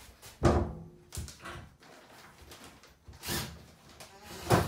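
Hollow knocks and bumps as a plastic tub-surround wall panel is handled against wooden wall studs. There are two loud thumps, one about half a second in and one near the end, a softer knock a little past three seconds, and light taps in between.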